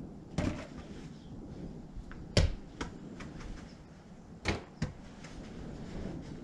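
Small soft balls thrown one after another, thumping against a house wall and plastic targets: about five knocks a second or two apart, the loudest about two and a half seconds in.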